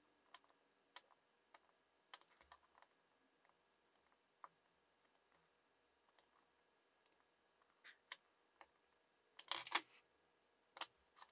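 Faint, scattered small clicks and taps of hand tools working the metal legs of an edge-connector socket on a circuit board. There is a louder clatter of handling about nine and a half seconds in, as the board is lifted off the mat.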